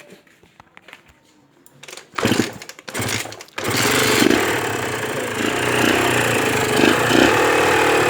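Honda NSR150RR's single-cylinder two-stroke engine firing briefly twice about two seconds in, then catching a little over three and a half seconds in and running, revved up and down with repeated throttle blips. It is a long-laid-up engine, in which the mechanic hears noisy balancer-shaft and crankshaft bearings.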